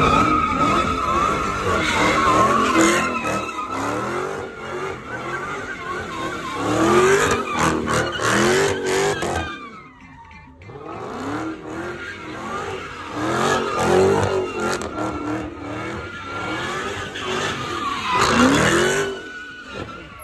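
A car doing donuts: its engine revving up and down over and over while the rear tires squeal and spin, with a brief lull about halfway through.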